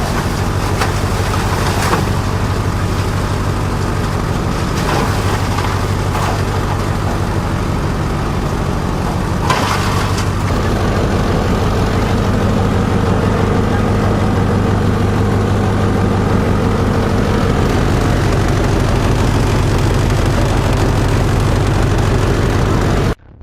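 A multi-purpose chopper-shredder-grinder machine running with a steady, loud motor drone, with a few sharp knocks from the machine. The sound cuts off abruptly near the end.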